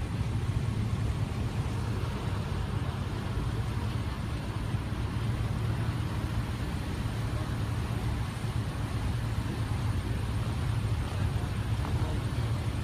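Pickup truck engines idling and creeping in slow traffic: a steady low rumble.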